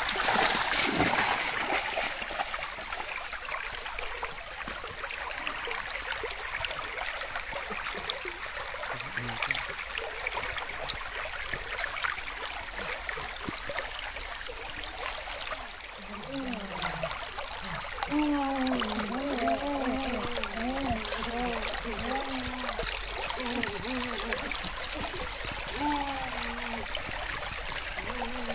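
Shallow creek water trickling and running steadily over stones, with a brief splashing of water by hand at the start. From a little past halfway, a faint wavering pitched sound rises and falls over the running water.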